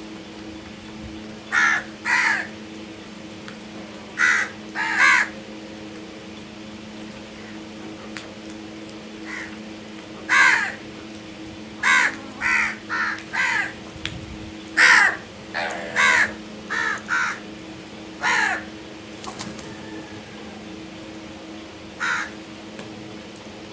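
Crows cawing: about fifteen short, harsh caws, in pairs and quick runs, with the busiest stretch in the middle and a last single caw near the end, over a steady low hum.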